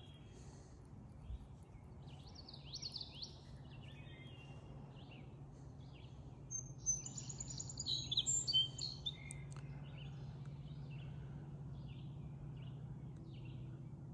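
Songbirds singing in quick chirps and trills, loudest about halfway through, over a steady low hum.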